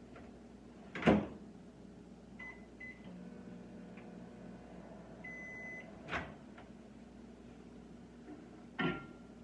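Microwave oven being worked: a loud clunk of the door shutting, two short keypad beeps, then a longer beep, followed by two more clunks.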